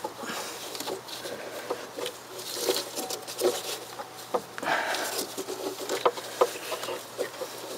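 Scattered small clicks, knocks and rustles from a Bosch starter motor being wiggled by hand against the aluminium bell housing. The starter is lodged and does not come free.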